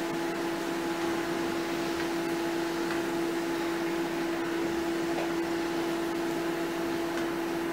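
A steady machine hum holding one fixed pitch over a soft even hiss, like a kitchen appliance or fan running.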